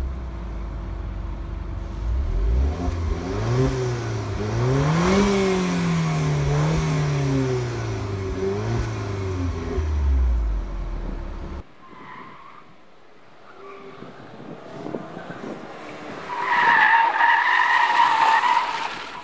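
Alfa Romeo Giulietta QV's 1750 TBi turbocharged four-cylinder, heard at the tailpipe, revved repeatedly at a standstill, its pitch rising and falling several times. After a cut, the car is driven hard past, and near the end its tyres squeal for about two seconds.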